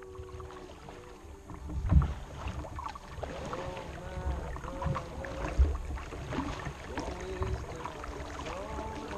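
Kayak paddling on calm water: water dripping and plinking off the paddle blades, with soft splashes and a few low thumps of the strokes.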